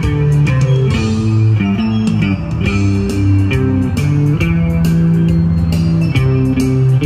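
Guitar music: plucked guitar notes changing every fraction of a second over a moving bass line, with sharp note attacks throughout.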